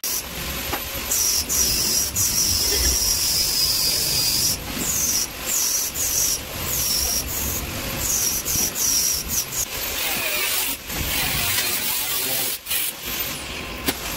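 TIG welding arc on stainless steel tube: a steady hiss for about three seconds, then a string of short hissing bursts of about half a second each as joints are tacked.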